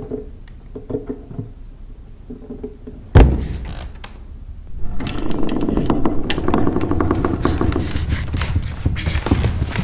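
Faint tapping, then a sharp thud about three seconds in, then from about five seconds a loud, rapid, continuous rattling and knocking: an old wooden chest knocking and shaking from the inside.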